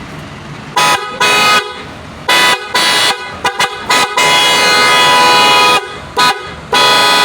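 Car horn sounding as a series of short honks, then a quick flurry of taps about three seconds in, a steady blast of about a second and a half, a short toot, and another long blast starting near the end.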